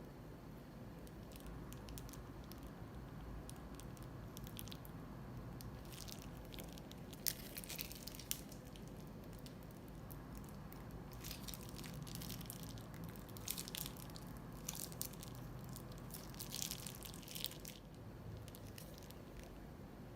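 Slime being squeezed and worked by hand: spells of sticky crackling and squishing, the main ones near the middle and toward the end, over a low steady hum.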